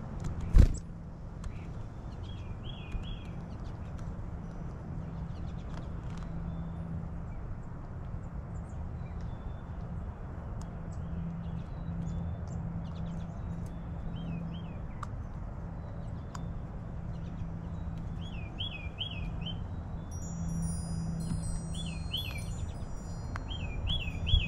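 Small songbirds calling in short chirps, mostly in quick runs of three or four notes, over a steady low rumble. A sharp knock comes less than a second in, and faint high wind-chime tones ring near the end.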